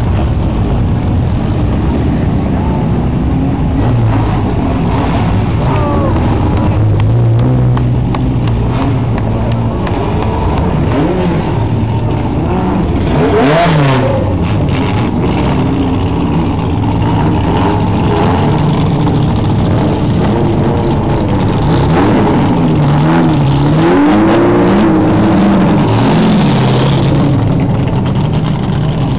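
Engines of vintage sports racing cars passing slowly in a line, their revs rising and falling as throttles are blipped, most sharply about halfway through and again near the end.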